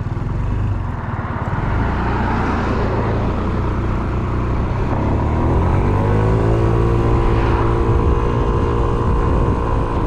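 Yamaha Smax 155 scooter's single-cylinder engine pulling away and accelerating onto the highway, with wind and road noise. The engine pitch rises about five seconds in, then holds steady at cruising speed.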